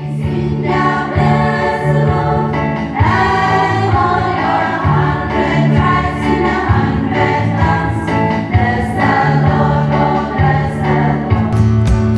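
Background music: a choir singing held notes in harmony over steady low notes, with a sharper beat coming in near the end.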